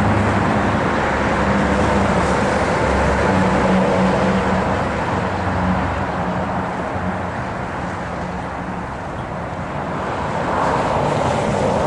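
Car engine and tyre noise heard from inside a moving car: a steady hum with a low engine drone, easing off a little past the middle and picking up again near the end.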